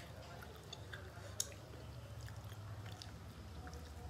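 People eating rice and curry by hand: chewing with small scattered mouth and finger clicks, and one sharp click about a second and a half in.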